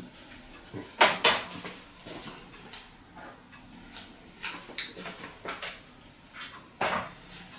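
Kitchen dishes and utensils being handled: a pair of sharp knocks about a second in, scattered lighter clinks in the middle, and another knock near the end.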